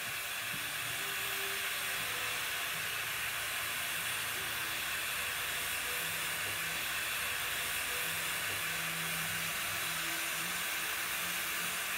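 A standing steam locomotive, No. 190, a ten-wheeler, hissing steam steadily while it sits under pressure.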